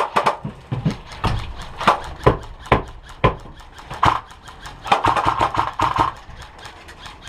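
Airsoft electric rifle (an ICS SIG 551 AEG) firing: scattered sharp single shots, then a short full-auto burst about five seconds in.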